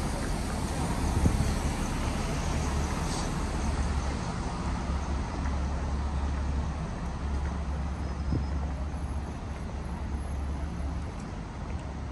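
Street ambience of road traffic passing: a steady low rumble and hiss, with no single event standing out.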